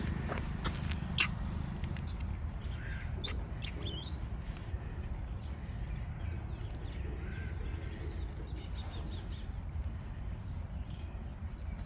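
Birds chirping briefly and high over a steady low outdoor rumble, with several sharp clicks in the first few seconds.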